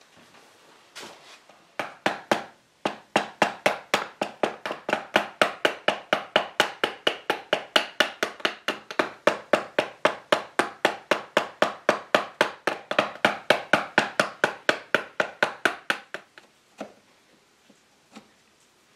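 A hammer tapping a steel chisel in quick, even light blows, about four a second, to trim a glued-in wooden wedge flush with the chair frame. The run starts about two seconds in, stops a few seconds before the end, and a few single taps follow.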